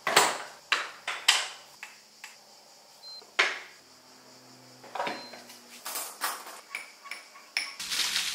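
Kitchen clatter: a dozen or so sharp clinks and knocks of a cup, a milk jug and a coffee machine being handled while coffee is made. Music starts near the end.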